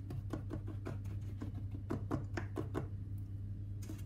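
A spoon tapping and pressing crushed speculoos biscuit crumbs into the base of a metal springform pan: quick, irregular light clicks, several a second, with a short pause near the end, over a steady low hum.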